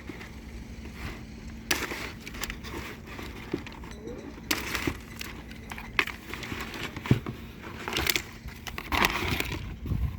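Packaging being handled and cut open: irregular rustling and crackling with scattered sharp clicks. A steady low hum stops about two seconds in.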